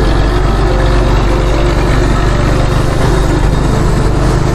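Suzuki GS150 motorcycle's single-cylinder four-stroke engine running steadily while being ridden, under an even rush of wind and road noise.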